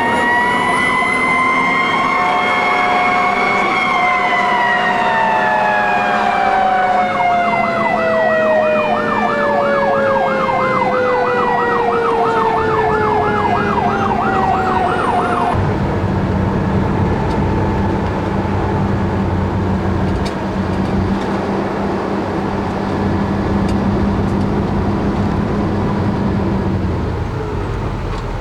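Fire truck sirens: a wailing siren rises and then winds slowly down, joined for several seconds by a fast yelping siren. Both cut off together about halfway through, leaving the truck's engine running steadily.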